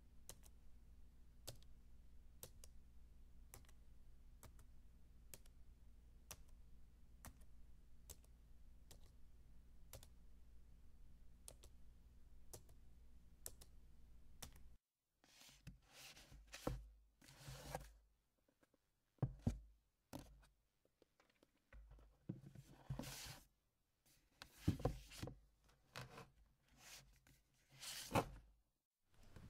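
Regular clicking, roughly two sharp clicks a second, over a steady low hum, stopping about fifteen seconds in. Then a clipboard is handled, with irregular knocks, clip snaps and rustling clatter.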